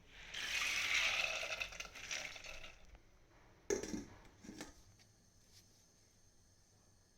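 Kitchen handling sounds: a noisy rush for about two and a half seconds, then a sharp knock and a smaller one a second later.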